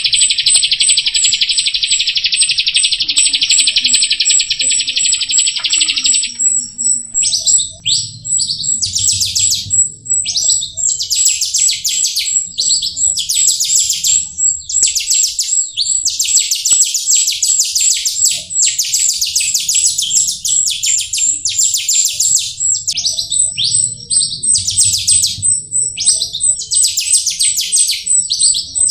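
A jalak rio starling singing loudly and continuously. It opens with a dense buzzing trill for about six seconds, then breaks into rapid, varied chattering phrases with short pauses. A thin, high ticking whistle runs underneath the whole time.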